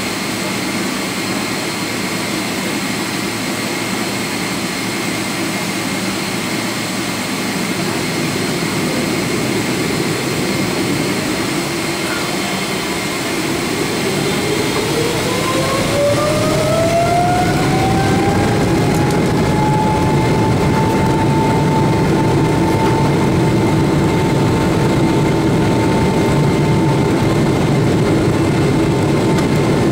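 Boeing 777-300ER's GE90 turbofan heard from inside the cabin: a steady hum, then about 13 seconds in a whine rises in pitch over several seconds and levels off, running a little louder as the engine spools up toward take-off thrust.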